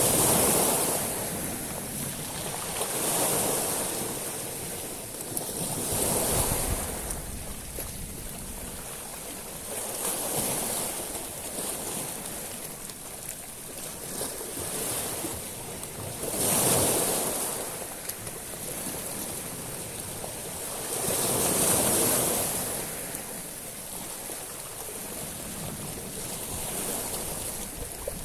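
Sea waves washing over a shingle beach of small stones, swelling and falling back every few seconds, about six surges in all, each with a high hiss of water through the stones.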